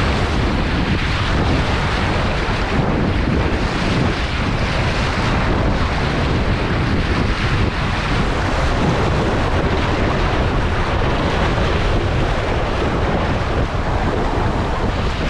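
Wind buffeting the microphone over the rush of sea water along the hull of a sailboat under way, a loud, steady roar with no break.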